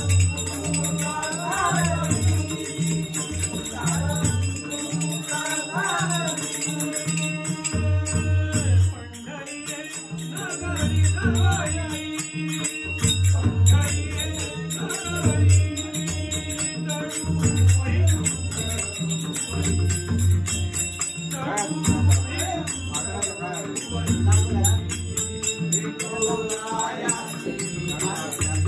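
Devotional bhajan singing, accompanied by a barrel drum's deep strokes and the steady jingling of small hand cymbals keeping time.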